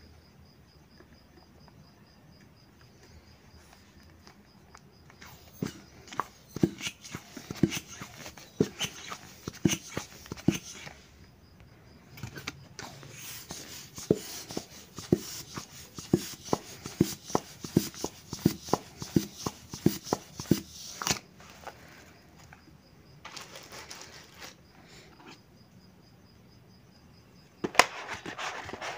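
Plastic toy hand pump being worked to blow up a balloon: repeated pump strokes, each with a rush of air, about two a second, with a short pause partway. A sharp click near the end, then handling noise.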